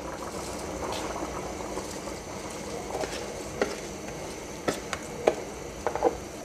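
Beef stock boiling steadily in a pan as soaked rice is poured in from a bowl. A few sharp clicks come in the second half.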